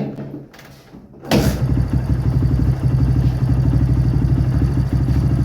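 Kawasaki Barako 2 motorcycle's single-cylinder four-stroke engine being kicked over and catching about a second in, then settling into a steady idle with an even, fast beat. The quick start shows the hard-starting fault is cured after the idle adjustment.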